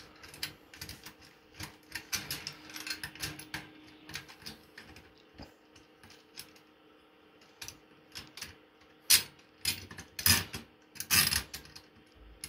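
Small metal clicks and clinks as a steel U-bolt mast clamp with wing nuts is handled and worked loose on a wire-mesh antenna reflector. Near the end comes a louder clatter of metal on metal.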